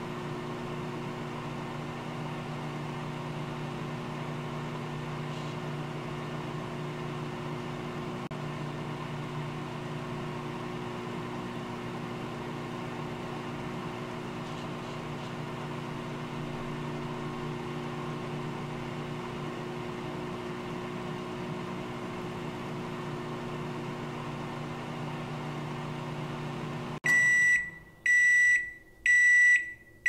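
Microwave oven running with a steady hum, which cuts off near the end, followed by the oven's high-pitched beeps, three in a row, evenly spaced: the cooking cycle has finished.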